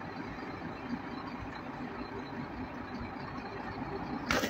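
Heavily loaded lorry's diesel engine running steadily under load as the truck crawls along a muddy, rutted track. Near the end comes a brief loud hiss.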